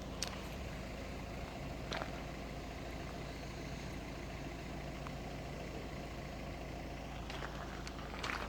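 An engine running steadily at idle, a low even hum, with a couple of faint clicks.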